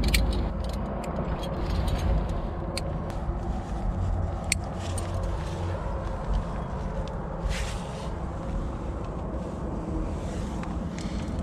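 Wind buffeting a helmet-mounted GoPro's microphone as a steady low rumble, with scattered light clicks and clinks of carabiners and climbing gear against the rock.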